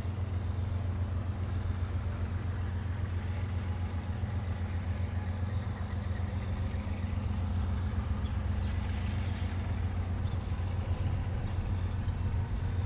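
A heavy engine running with a low, steady rumble, unchanged throughout.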